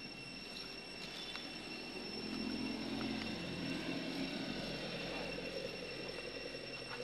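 A low, engine-like drone that swells about two seconds in and then eases off, over a steady high-pitched whine.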